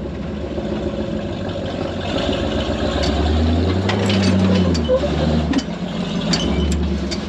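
Off-road recovery rig's engine pulling under load as it crawls over rock carrying a side-by-side: the engine rises and gets louder from about two seconds in, then eases off near the middle. Scattered sharp knocks and clicks come from the rig and its load working over the rock.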